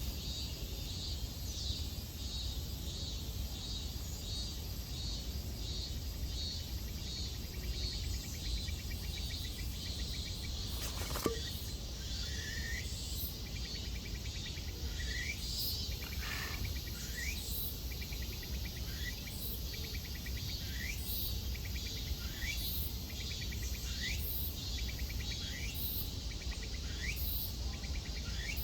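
Insects calling in a steady pulsing rhythm over a low rumble. From about halfway a bird adds short rising chirps, roughly one a second.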